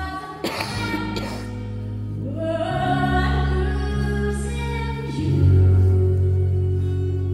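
Live music: a woman singing a slow song with backing voices, over acoustic guitar and held bass notes that step to a new pitch twice.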